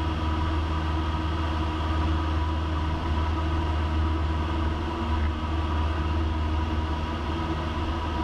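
Cessna 172 Skyhawk's piston engine and propeller droning steadily in the cockpit in level flight.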